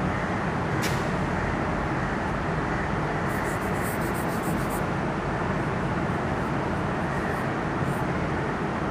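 Steady background noise, with light ticks and taps of chalk on a blackboard while writing: a sharp tick about a second in, a quick run of ticks between about three and five seconds in, and one more near the end.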